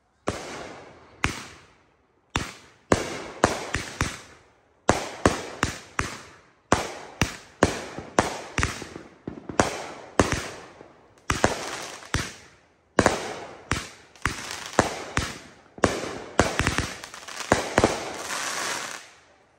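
Aerial fireworks bursting overhead in rapid succession: dozens of sharp booms, several a second at times, each trailing off, with a few brief pauses. The booms bunch into a dense run near the end, then stop suddenly.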